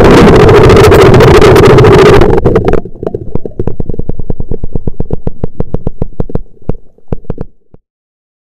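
FPV racing drone's motors running loudly and overloading the onboard camera's microphone as the drone goes under the water after a propeller failure. About two and a half seconds in, the steady noise cuts out to scattered crackling clicks that thin out and stop near the end.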